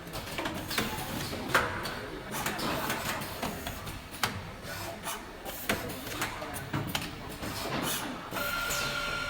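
Automated tube-processing machinery running: irregular sharp clacks and knocks from its moving mechanisms over a busy mechanical noise. A steady high whine joins about eight seconds in.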